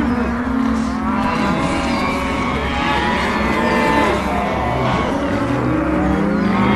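Cartoon stomach-growling sound effect: long, pitched, wavering growls, several overlapping, running on without a pause.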